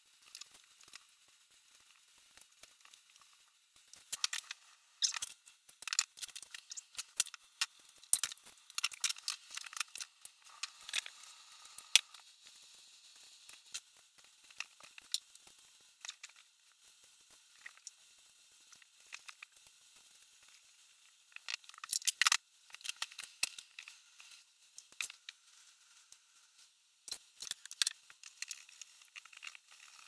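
Handling noise from work on a plastic cooler: scattered clicks, taps and rustling as parts are fitted onto its lid. It comes in two busy spells with a quieter stretch in the middle.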